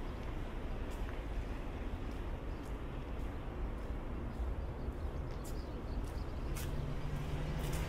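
Footsteps on a wet concrete walkway, faint clicks about a second apart, over a steady low rumble. A steady low hum sets in near the end.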